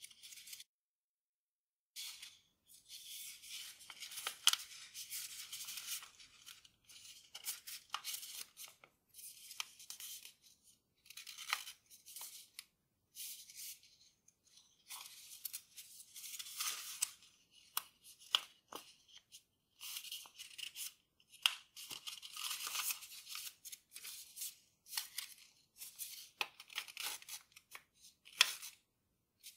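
A sheet of grainy origami paper rustling and crackling in the hands as it is folded and creased, with sharp little crackles, in irregular spells broken by short pauses.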